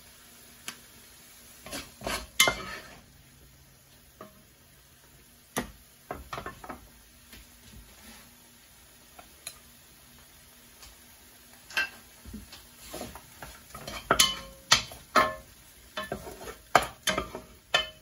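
A metal ladle and spatula scraping and clinking against a cooking pan, with chopsticks tapping, while noodles and vegetables are lifted out and served onto a plate. The clinks come irregularly in clusters, busiest and loudest near the end.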